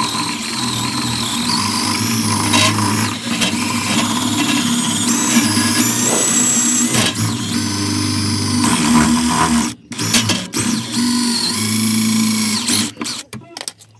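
Power drill running with its bit boring into a rusted steel bolt, the bit squealing at a wavering high pitch over the motor's steady drone. The drill stops briefly about ten seconds in, runs again, and stops just before the end.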